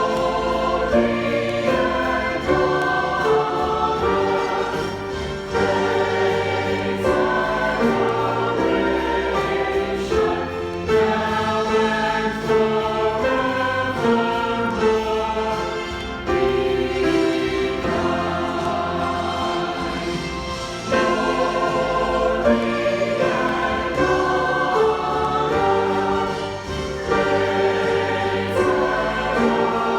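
Church choir singing with instrumental accompaniment: held notes that change every second or so over sustained low bass notes.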